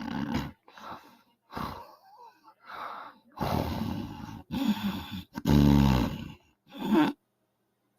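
A woman snoring loudly in a run of about eight short, irregular snores, the longest and loudest about five and a half seconds in.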